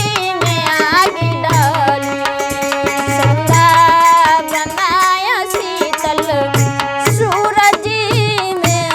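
Woman singing with tabla and drum accompaniment; a low drum beats in a steady rhythm under sharp hand-drum strokes and sustained tones.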